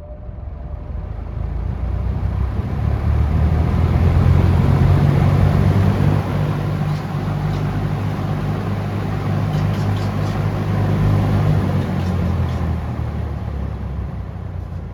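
Late-1960s Kel Aire box fan with a metal blade, its airflow hitting the microphone as loud rushing wind noise with a heavy low rumble. It builds over the first few seconds as the fan comes up to speed, holds steady, then eases off near the end.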